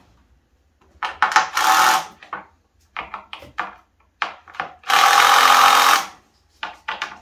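Cordless drill driving screws into wooden boards. The motor runs in a series of short trigger bursts, with one steady run of about a second around five seconds in, then a few more short bursts near the end.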